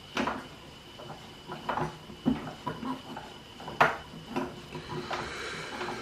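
Toy Miele washing machine (Klein 6941 WT) clattering: irregular light plastic clicks and knocks over a faint steady high tone.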